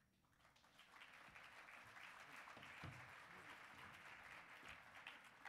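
Audience applauding, building up over the first second or so and tapering off near the end.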